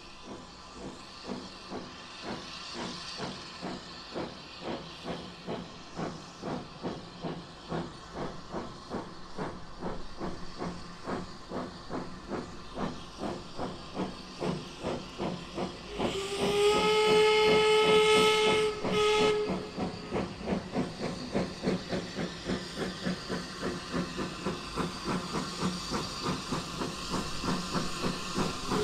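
Saddle-tank steam locomotive working a train towards the listener, its exhaust beats at about three a second growing steadily louder over a hiss of steam. About sixteen seconds in, a steam whistle sounds one long blast of about three seconds.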